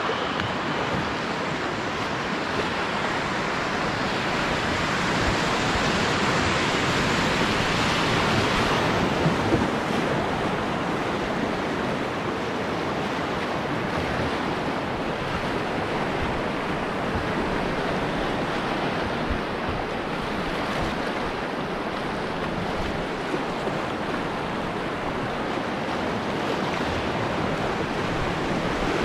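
Whitewater of a class II rapid in spring flood rushing around a canoe running through it: a steady, loud wash of water, a little louder about five to ten seconds in.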